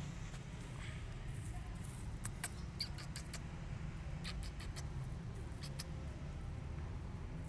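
Kitten grooming itself, its licking making scattered small clicks and ticks over a steady low rumble. The two sharpest clicks come a little over two seconds in.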